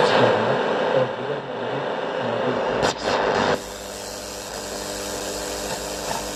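Sony CFM-155S radio cassette recorder's speaker putting out noisy, hissing radio reception. A couple of clicks come about three seconds in, and the sound then drops abruptly to a quieter steady hiss with a faint hum.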